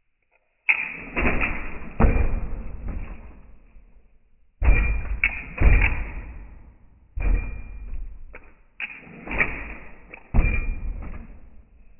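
'62 A-arm lowrider hopper hopping, its back bumper banging down hard again and again: about eight heavy bangs, each ringing out for a second or more.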